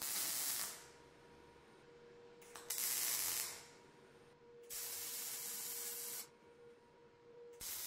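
MIG welding gun laying short welds on steel, in separate hissing bursts: three of about one to one and a half seconds, roughly two seconds apart, and a fourth starting near the end.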